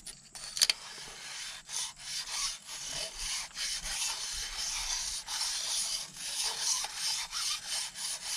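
A stone cylinder hone spun by a cordless drill, its stones rasping against the cast-iron cylinder wall of a Ford big-block V8 in a continuous scrape that pulses a few times a second as it is stroked in and out. A sharp click comes about half a second in. This is honing the rust-pitted bore clean to leave a cross hatch.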